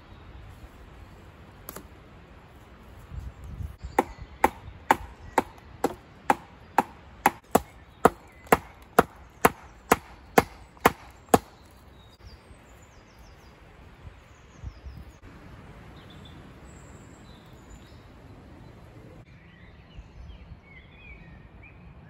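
Wood being chopped by hand: about sixteen quick, evenly spaced blows, roughly two a second, that then stop.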